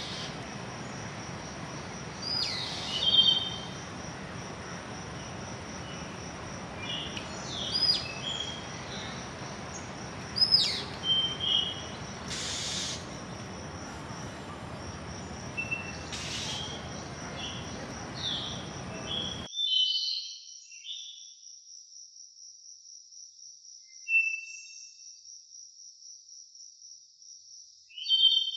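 Small birds calling with short, high, sweeping chirps every few seconds over a steady high insect trill and an even background hiss. About two-thirds of the way through the hiss cuts off abruptly, leaving the insect trill and a few scattered chirps.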